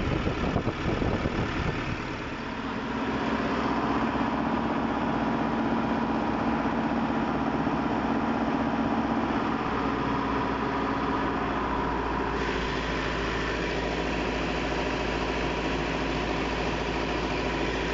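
Volvo D5E four-cylinder diesel engine of an EC210D excavator running steadily. It now runs on a newly replaced fuel pressure sensor that has cured its hard starting and stalling.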